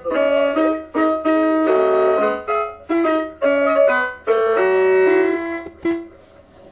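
Electronic, keyboard-like Christmas carol melody played by a Mr. Christmas Lights and Sounds of Christmas music box, a quick run of single notes. The tune ends about six seconds in.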